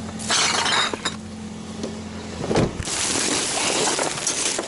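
Cardboard box and plastic-bagged scrap wire rustling and knocking as they are loaded into a car, with a single knock about two and a half seconds in. A steady low hum runs under the first half and stops at the knock.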